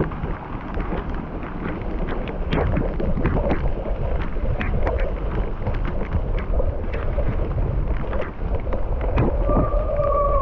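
Mountain bike ride on a dry dirt trail: steady wind rumble on the microphone, with the bike rattling and clattering over rough ground and a brief high squeal near the end.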